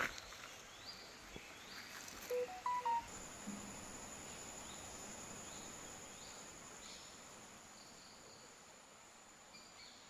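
Woodland insects and birds: a steady, high, thin insect drone like a cricket's sets in about three seconds in, with short bird chirps scattered throughout. A few louder short pitched notes, likely a bird's call, come just before the drone starts.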